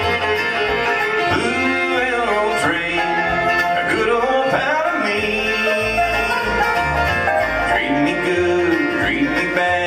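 Live bluegrass band playing: fiddle, banjo, acoustic guitar, resophonic guitar and upright bass together, with the banjo prominent.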